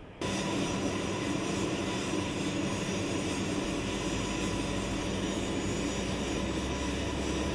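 The twin TF34 turbofan engines of an A-10 Thunderbolt II running steadily on the ground: a constant whine over a rushing jet noise. It starts suddenly a moment in, and a deeper rumble joins about halfway through.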